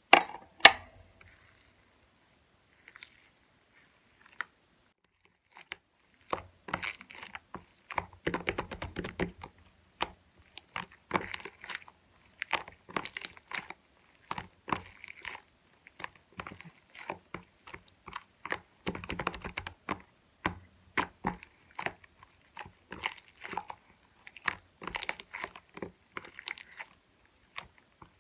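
Slime being pressed and squished by hand, giving dense crackling clicks and pops in repeated bursts about every two seconds. It opens with a couple of sharp clicks, then stays mostly quiet for several seconds before the squishing starts.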